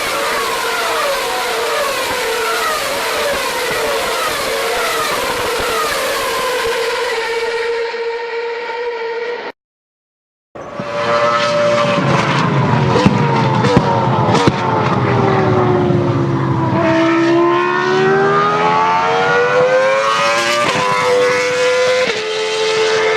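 Formula 1 car engine sound effect, electronically distorted. For about nine seconds a steady high tone runs under pitch sweeps that keep falling, one after another. The sound cuts out for about a second, then returns as an engine note that sinks slowly in pitch and rises again.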